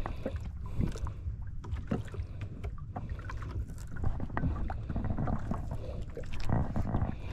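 Wind rumbling on the microphone and water lapping against the hull of a small outrigger boat at sea, with scattered small knocks and clicks from handling the rod and reel.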